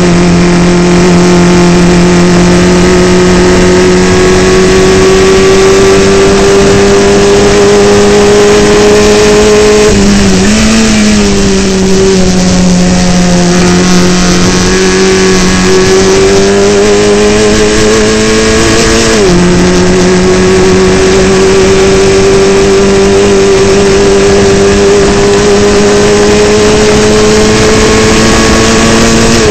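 Formula Ford single-seater's four-cylinder racing engine heard onboard at high revs under load, its pitch climbing slowly. About ten seconds in the note dips and briefly blips, and about nineteen seconds in it drops sharply on a gear change before climbing again.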